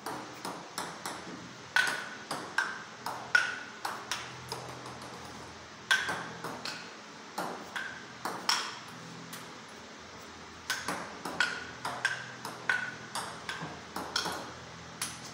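Table tennis rally: a plastic ball clicking off paddles and bouncing on the table, about two hits a second, pausing twice between rallies.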